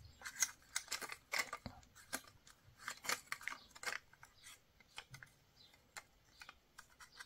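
Plastic housing of a radiator thermostat handled and pried at by hand: irregular light clicks, taps and scrapes of plastic, busiest in the first few seconds and thinning out later.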